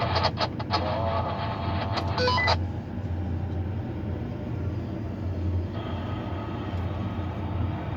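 Two-way radio in a tower crane cab: a crackly, distorted voice transmission that ends with a short beep about two and a half seconds in. Under it runs a steady low hum.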